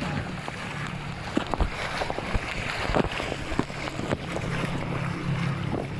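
Water rushing and splashing under a tube sliding down a water slide, with wind buffeting the microphone and a few short knocks.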